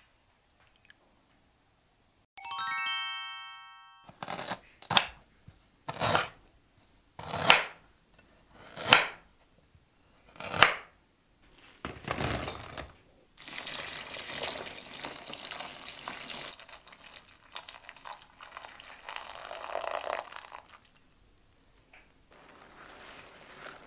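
A chime rings once and dies away. Then handfuls of dried jujubes drop and rattle into a stainless steel colander, about six times, and water runs from a tap into the bowl of jujubes for about seven seconds to soak them.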